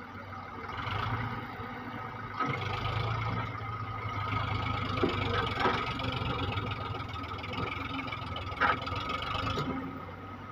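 Diesel engines of an Eicher 548 tractor and a JCB backhoe loader running together, a steady low hum that grows louder about two seconds in and eases off near the end. A few sharp knocks come through midway and once more later.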